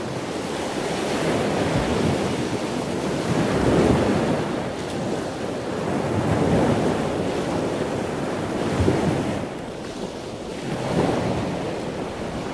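Ocean surf: a steady rush of water noise that swells and eases every two to three seconds.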